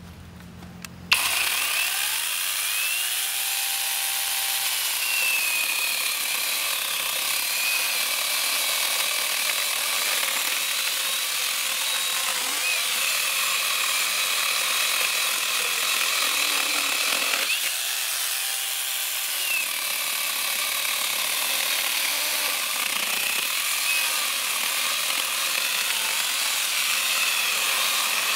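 Akaido cordless brushless angle grinder with a 12-inch chainsaw attachment starting about a second in and running steadily, its chain cutting through a log, with a high whine over the noise of the cut.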